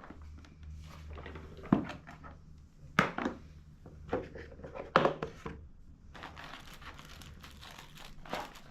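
Handling noises from an upright vacuum cleaner's bag compartment being opened and checked: several sharp plastic clicks and thunks, and a stretch of crinkling from the paper bag near the end, over a faint steady low hum.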